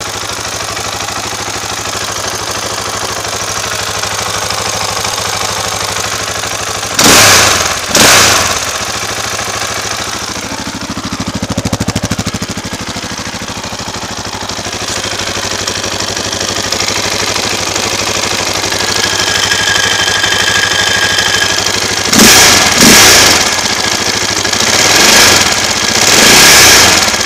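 KTM LC4 640 single-cylinder four-stroke engine with an Akrapovic slip-on exhaust idling warm without choke, with two sharp throttle blips about seven seconds in and several more near the end.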